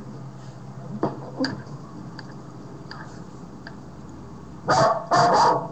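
Dog barking: two loud barks near the end, over a low steady hum, with a few faint clicks before them.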